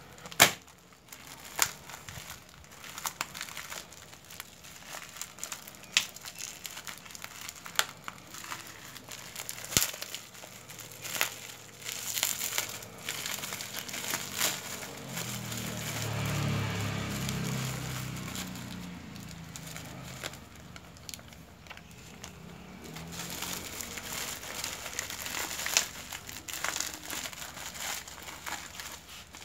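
Clear plastic wrapping is crumpled, crinkled and torn by hand as it is pulled off a small parcel, giving a run of sharp crackles. A low rumble swells and fades in the middle.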